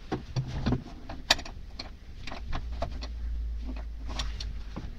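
Rusty 18-inch Bahco adjustable wrench handled by gloved hands, its movable jaw worked: irregular metal clicks and knocks, the sharpest a little over a second in.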